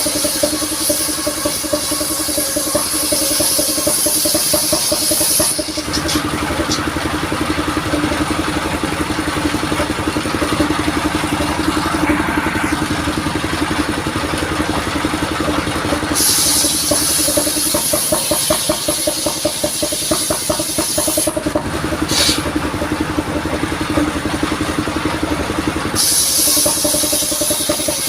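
Engine of a modified vehicle-mounted sawmill running steadily while it saws coconut wood, with a high hissing sound that comes in during the first few seconds, again from about 16 to 21 seconds in, and again near the end.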